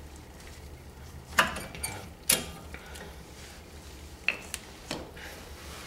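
Brake pads being worked by hand out of a disc brake caliper bracket: a few sharp metallic clicks and knocks of the pads' steel backing plates against the bracket, spread over several seconds.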